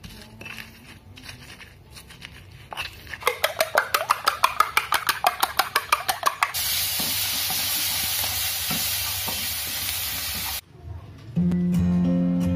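A quick run of sharp knocks, about six a second, then steady sizzling of food frying in a pan, which cuts off suddenly; acoustic guitar music starts near the end.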